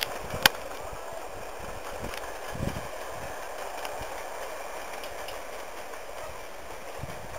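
Steady rushing background noise with a single sharp click about half a second in and a soft low thump a little after two seconds.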